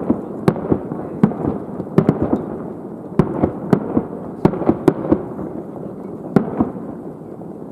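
Fireworks display: a rapid, irregular string of sharp shell bursts and crackling bangs over a continuous rolling rumble. Near the end the bangs stop and the rumble fades.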